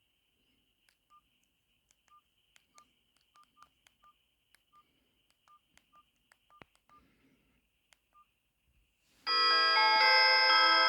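Philips Xenium E207 mobile phone: a dozen or so short, faint keypad beeps on one pitch, with light button clicks, as keys are pressed at an uneven pace. About nine seconds in, one of its built-in ringtones starts playing through the phone's speaker, a melody with several notes at once and much louder than the beeps.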